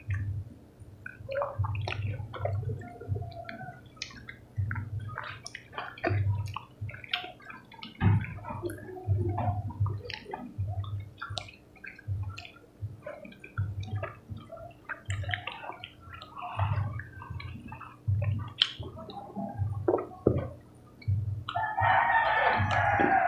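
Close-up mouth sounds of people eating ripe mango slices: wet sucking, slurping, lip smacks and chewing. Near the end a rooster crows once in the background, about a second and a half long.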